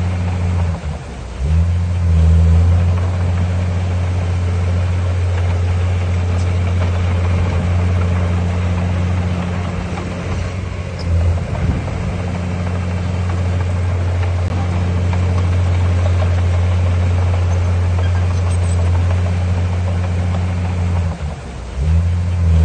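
Heavy construction machine's diesel engine running steadily under load, a deep drone that dips briefly about a second in and again near the end as the throttle eases and comes back.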